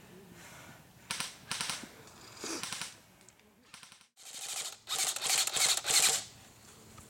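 Airsoft electric rifles firing full-auto bursts, a fast rattle of shots. There are three short bursts in the first few seconds, then longer and louder bursts after a brief gap.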